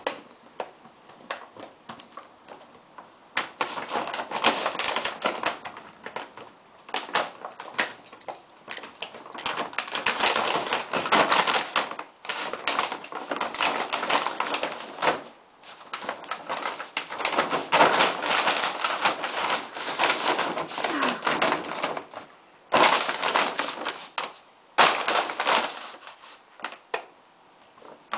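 A German shorthaired pointer puppy playing with a feed bag, the bag crinkling and crackling loudly in long bursts with brief pauses between them.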